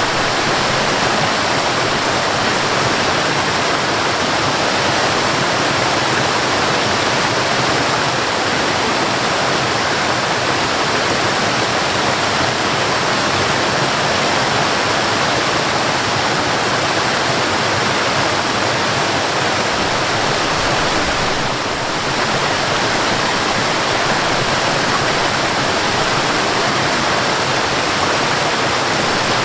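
Waterfall: a steady, even rush of falling water, dipping slightly for a moment about two-thirds of the way through.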